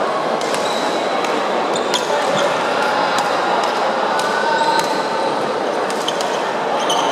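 Busy badminton hall with several courts in play: a steady echoing din of play and distant voices, with sharp clicks of shuttlecocks struck by rackets and short high squeaks of shoes on the wooden floor.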